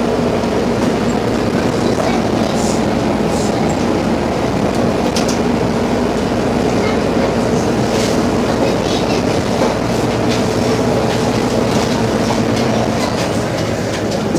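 Steady running noise inside a bus on the move: engine drone and road noise, with occasional light rattles and clicks from the cabin fittings.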